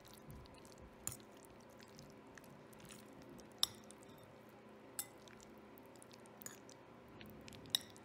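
A metal fork twirling spaghetti in a ceramic bowl: soft, wet scraping of the noodles, with a few sharp clinks of the fork against the bowl, the loudest about three and a half seconds in and near the end. A faint steady hum runs underneath.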